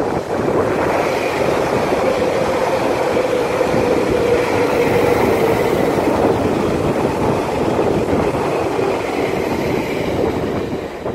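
Electric passenger train passing close by on the rails: a loud, steady rush of wheels on track with a steady hum.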